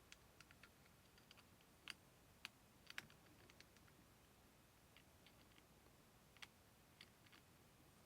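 Faint, scattered small clicks and taps of a hex key and grip screws working on a pistol's grip panel, with a few sharper clicks about two, two and a half and three seconds in and again near six and a half seconds.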